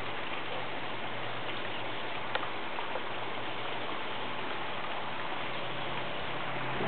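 Steady hiss with a faint low hum underneath and one or two light clicks.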